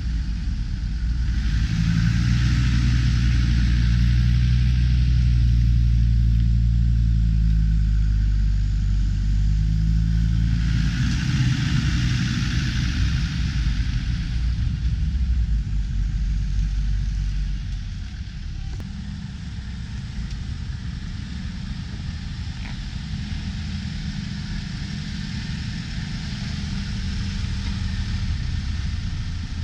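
Land Rover 4x4 engine working off-road, its low rumble changing pitch with the throttle for the first half. It then drops to a quieter, steadier run about two thirds of the way through.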